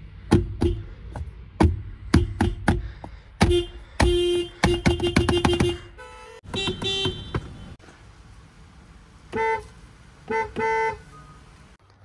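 Toyota car horn honked in a string of short taps, then a quick run of rapid taps about four to six seconds in. This is followed by a few longer honks on a higher-pitched horn that sounds two notes at once.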